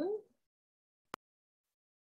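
The last syllable of a spoken word, then dead silence broken once, about a second in, by a single short sharp click.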